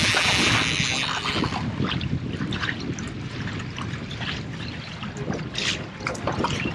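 A big striped bass thrashing and splashing at the water's surface as it is netted beside a boat, loudest in the first second or so, with scattered smaller splashes after. Wind buffets the microphone throughout.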